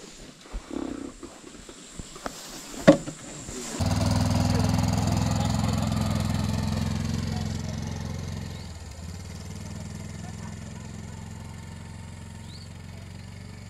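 Quad bike (ATV) engine starts to be heard suddenly about four seconds in, a steady drone as it drives off across the field and fades gradually with distance. Before it, a few faint knocks and one sharp click.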